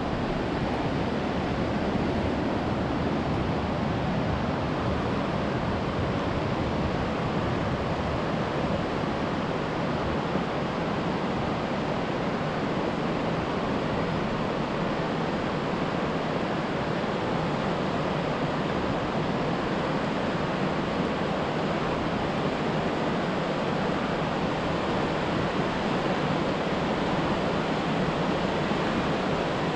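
Swollen, fast-flowing river rushing below a bridge: a steady, even sound of running water that never lets up.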